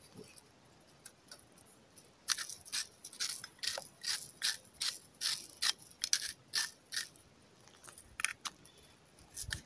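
Salt-and-pepper shaker shaken over fish in a run of short rattling strokes, about two a second, starting a couple of seconds in and dying off near the end with a few last shakes.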